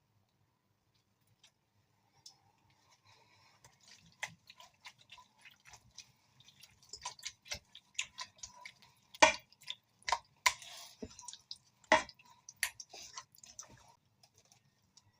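Irregular clicks and taps of kitchen utensils against cookware, with soft wet food-handling sounds. Two sharper knocks come about nine and twelve seconds in.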